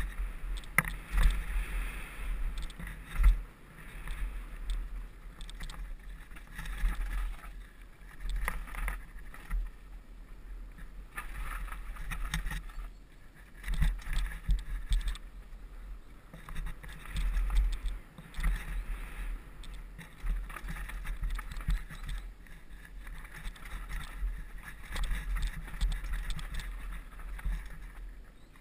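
Cube hardtail mountain bike riding fast down a dirt and loose-stone trail: tyre noise on the gravel, with frequent knocks and rattles as the bike takes bumps. A heavy low rumble of wind buffets the helmet-mounted camera throughout.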